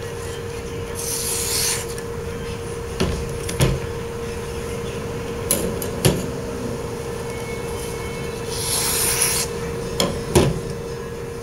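Paper being sliced by freshly sharpened blades to test their edge: two papery swishes, about a second in and again near the end. Sharp knocks of tools being handled on a table fall between them, over a steady hum.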